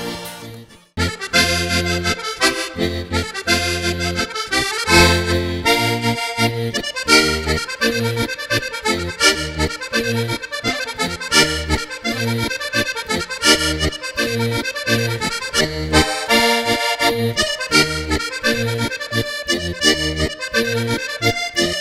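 Sardinian ballo sardo dance tune played on a diatonic button accordion (organetto), starting about a second in after a short break, with a steady pulsing bass.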